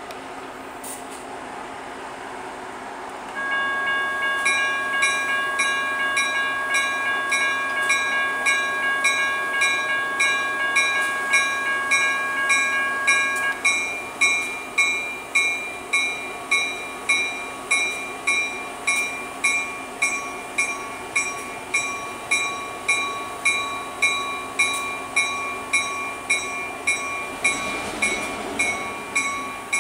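Railroad grade-crossing warning bell starting up about three seconds in and ringing in even strikes about twice a second over a steady ringing tone, as the crossing signals activate for an approaching train.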